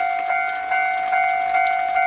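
Japanese railway level-crossing warning bell ringing its repeated electronic clang, about two and a half strikes a second. It signals that the crossing is closing for an approaching train.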